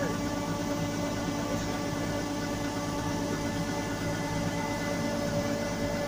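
Yanmar combine harvester running with its unloading auger turning, a steady mechanical hum with several constant tones, over a hiss of threshed paddy pouring from the spout into the bin.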